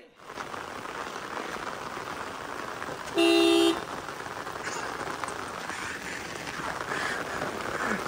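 Steady rain, with a vehicle horn honking once, briefly, about three seconds in.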